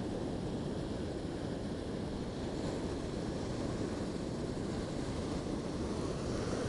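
Steady low rumble of wind on the microphone mixed with ocean surf breaking.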